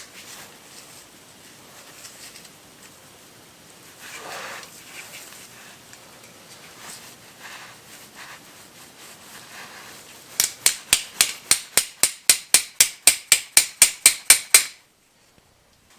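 Faint clatter of metal brake parts being handled, then a quick run of about twenty sharp ratcheting clicks, about five a second, that stops suddenly near the end.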